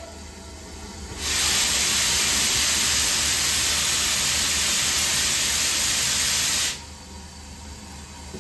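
Steam locomotive venting steam at its front end: a loud, even hiss that starts suddenly about a second in and cuts off abruptly about five seconds later.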